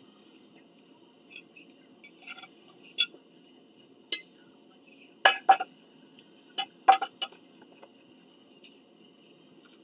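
Utensil clinking against a ceramic dinner plate during a meal: a scattered series of short, sharp clinks, the loudest in quick pairs about five and seven seconds in.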